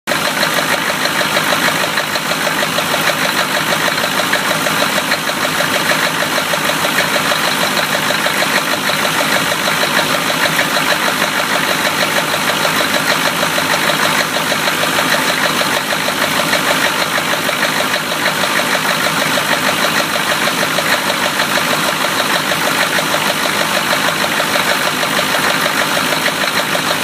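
1993 Chevy engine idling steadily with a fast, even knocking from its bottom end: a rod knock.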